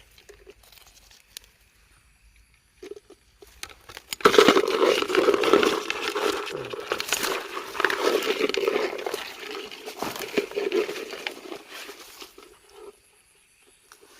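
Loud rustling and crackling that starts suddenly about four seconds in and dies away near the end.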